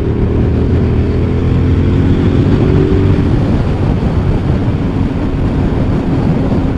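Motorcycle engine running under way. About three seconds in, a loud rush of wind noise takes over and drowns out the engine.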